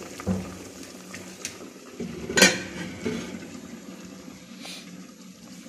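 Metal cooking pots clanking on a gas stove, with a few knocks and one sharp, loud clink about two and a half seconds in, over water simmering in a stainless steel pot.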